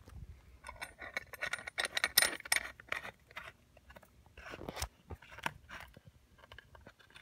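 Hinged stainless steel sanitary (tri-clamp) band being closed around the joint of two copper still sections and its wing-nut bolt swung in and tightened: a run of small metallic clinks and light scrapes, thickest in the first three seconds, with a few more later.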